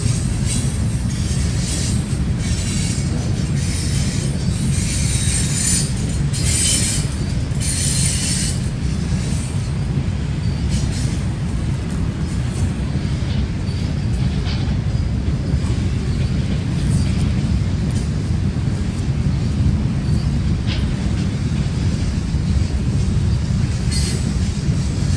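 Freight cars rolling past: a steady low rumble of steel wheels on the rail, with high-pitched wheel squeal coming and going over the first several seconds and only faint squeaks after that. The passing cars are boxcars and centerbeam flatcars loaded with lumber.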